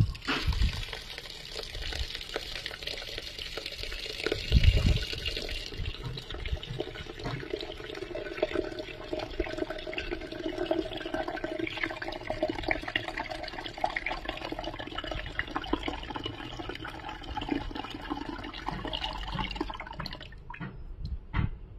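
A stream of water pouring and splashing into a steel pot of wheat grains, filling the pot until the grains are covered. A low thump about five seconds in.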